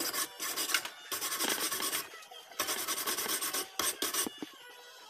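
Hand wire brush scrubbed hard against metal in several bursts of quick back-and-forth strokes, a dry rasping scratch.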